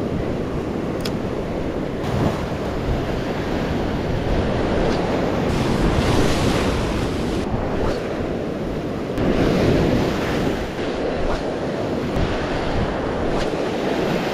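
Small waves breaking and washing up a sandy beach in the shallows, with wind buffeting the microphone. The wash swells louder twice, about six and ten seconds in.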